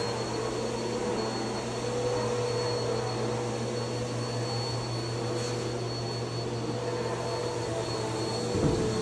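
A steady electric motor drone with a constant low hum and a thin high whine over it.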